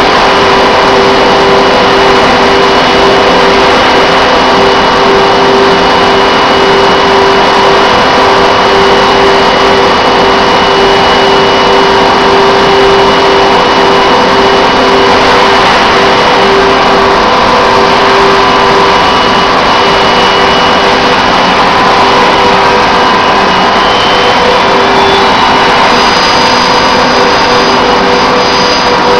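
Automated factory handling machinery running: a loud, steady machine drone with several constant humming tones, one of them pulsing slightly. A couple of faint high whines come in near the end.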